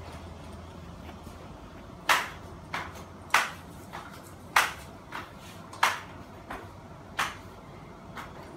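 A run of about ten sharp, ringing clicks at the Fanimation Benito ceiling fan's light fitting, roughly one every 0.6 to 0.7 s, starting about two seconds in.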